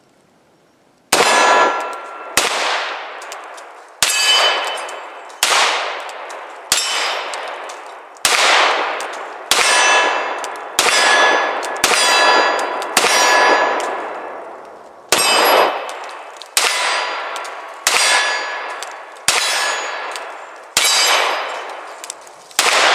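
CZ P01 9mm pistol firing about fifteen shots at a steady pace, roughly one every second and a half, most of them followed by the ringing clang of steel targets being hit. A few shots get no ring: misses.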